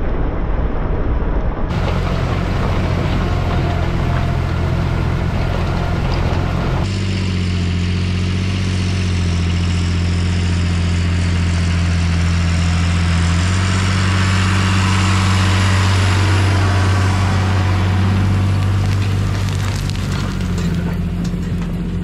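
Tractor engine running steadily under load while ploughing, a low drone that changes abruptly in tone a few times.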